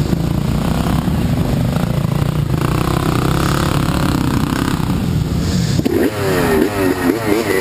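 Off-road dirt bike engines running close by as the bikes creep up a muddy climb. About six seconds in, one engine starts revving up and down in quick repeated throttle blips.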